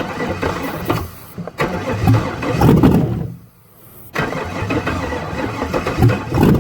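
Freshly swapped LS V8 being cranked by the starter and firing briefly on fuel poured into the intake, in bursts with a short pause a little past halfway.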